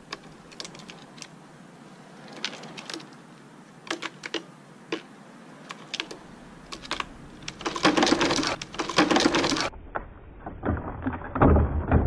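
Plastic-bottle bird trap with sparrows around it: scattered sharp taps on plastic and concrete, then, a little past the middle, a dense flurry of rattling as the trap snaps shut and a trapped bird flutters against the bottle. After a sudden change in the sound, duller rapid rattling goes on.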